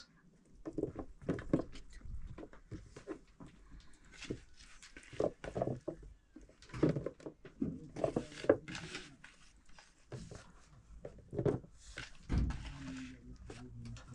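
Chopped green vegetables being packed by hand from a plastic bowl into a glass jar for pickling: irregular soft knocks and rustles as pieces drop and are pressed into the jar.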